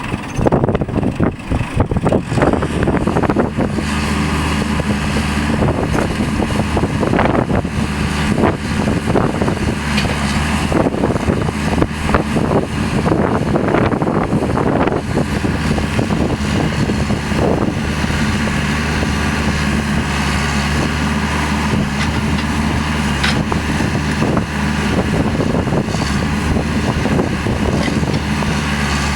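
Backhoe engine running at a steady speed, with scattered knocks and clanks over it. The first few seconds are more irregular before the engine note settles.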